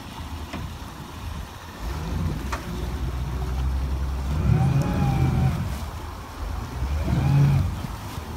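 An engine revving up and back down twice, first from about four and a half to five and a half seconds in and again around seven seconds, over a steady low rumble.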